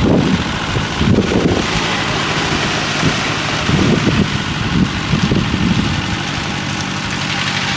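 Concrete mixer's engine running steadily on a construction site, with a few short louder surges over the drone.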